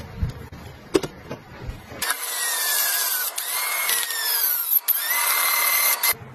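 Jumei electric citrus juicer running with an orange half pressed on its spinning reamer: a loud whirring, grinding noise with a whine that slides down and up in pitch. It starts about two seconds in, after a few light knocks as the fruit is set on the cone, and cuts off shortly before the end.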